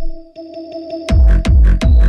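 Hardtekk electronic dance music: the bass cuts out, leaving held synth tones and light ticks, then about a second in a heavy kick drum comes back in a fast, steady beat.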